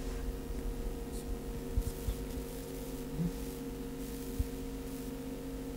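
A steady low drone of several held tones, with a few soft low thumps about two seconds in and again past four seconds.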